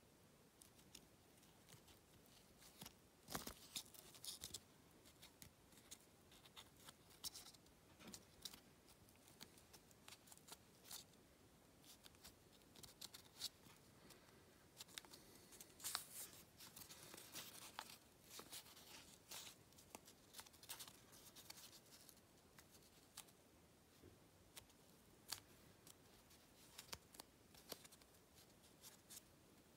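Origami paper rustling and crackling as fingers fold and crease it: a faint string of short crinkles and clicks, with louder crackles about three and a half seconds in and again around sixteen seconds.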